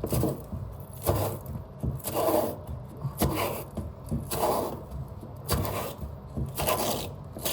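A metal pipe being scraped clean by hand with a cleaning tool, in about seven back-and-forth strokes, roughly one a second.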